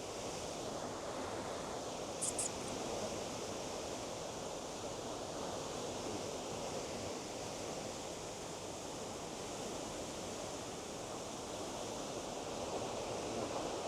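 Steady rushing of a stream tumbling over small waterfalls and cascades. Two short high chirps sound about two seconds in.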